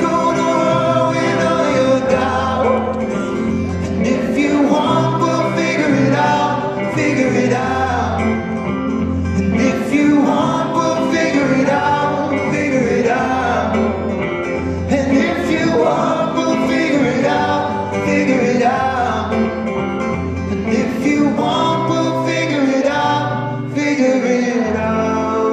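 Live pop band performance: singing over acoustic and electric guitars, with a low bass pulse about every two seconds.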